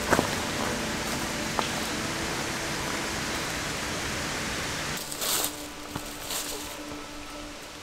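A steady, even rushing noise for about five seconds, then quieter, with a few short crunches of a hiker's footsteps in dry fallen leaves.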